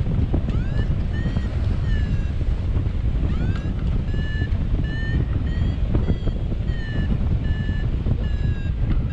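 Hang-glider variometer beeping: a few upward-sweeping chirps, then short pitched beeps about two to three a second that shift up and down in pitch, the tone a vario gives while the glider is climbing. Heavy wind rumble on the microphone from the airflow runs under it.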